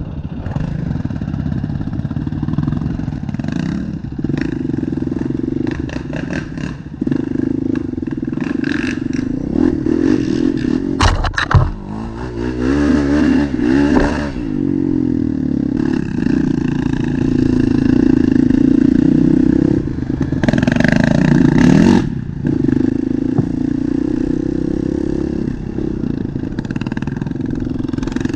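ATV engine running under load through mud, its pitch rising and falling with the throttle. It comes with clattering knocks from the machine, the loudest about eleven seconds in.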